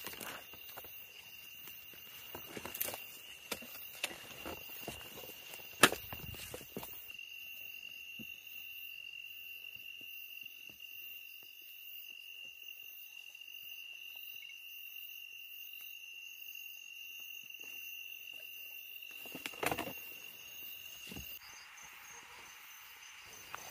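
Night insects trilling in one steady high note. Footsteps and rustling in dry brush and stones come through the first several seconds and again near the end.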